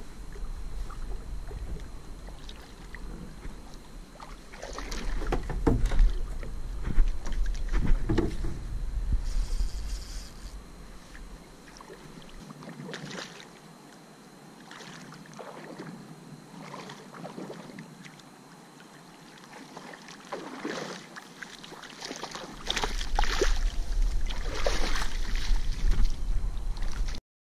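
Irregular water splashes and sloshing around a paddle ski in shallow water, loudest in two spells, a few seconds in and near the end. Wind rumbles on the microphone except through a quieter middle stretch.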